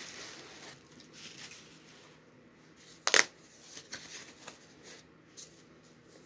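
Bubble wrap and tissue paper crinkling as a wrapped item is pulled out and unwrapped, with one sharp snap about three seconds in, the loudest sound, and a few lighter clicks after it.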